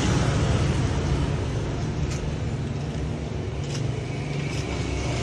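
Steady low rumble of a motor vehicle engine running, with a few faint clicks.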